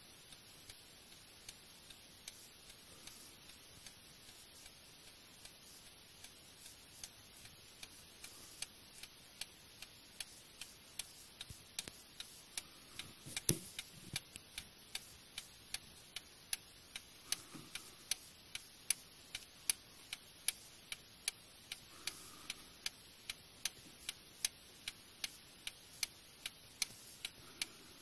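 Antique Paris clock movement stamped Vincenti, silver medal 1856, with a front-mounted escapement, ticking steadily as its pendulum swings; it is running without a problem. The ticks grow louder from about halfway, where there is one louder knock.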